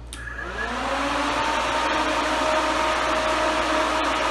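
Electric radiator cooling fan switched on through its relay and spinning up: a whine that rises in pitch over about the first second, then settles into a steady whir with rushing air.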